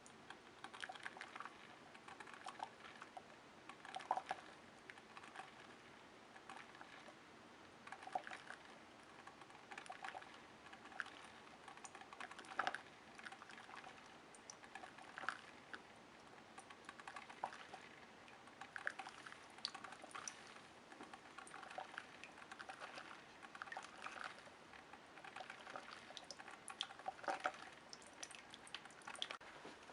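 Kitchen Selectives single-serve drip coffee maker brewing: faint, irregular pops, ticks and drips as the hot water pushes through and drips into the cup.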